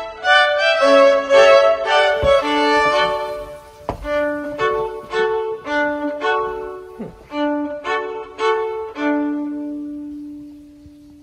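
Background music: a violin melody of short notes that ends on one long held low note, fading out near the end.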